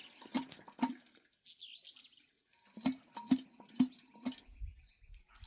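A run of short hollow knocks or drops, about two a second, in two groups with a pause between, and a brief high chirp during the pause.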